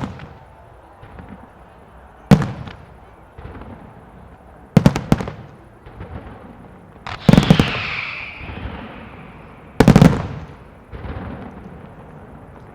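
Aerial fireworks shells bursting with sharp, loud bangs about every two and a half seconds, several coming as quick double or triple reports, each followed by a rolling echo. After the burst about seven seconds in, a crackling tail dies away.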